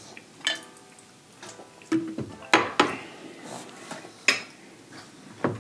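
Eating sounds at the table: chewing and a handful of sharp clicks of dishes and cutlery, the loudest a little past halfway.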